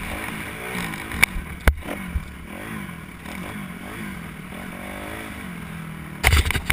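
Kawasaki KX250 motocross bike engine revving up and down several times as it rides a dirt track, heard from a helmet-mounted camera, with a few sharp knocks and a burst of clatter near the end.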